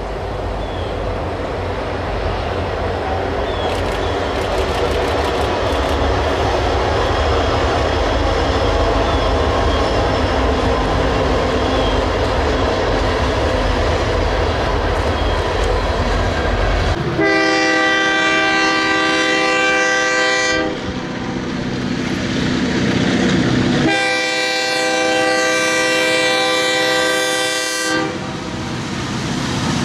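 Freight cars rolling past in a steady low rumble with clickety-clack. About two-thirds of the way in, an approaching diesel locomotive's multi-chime air horn sounds two long blasts, and a third begins at the very end.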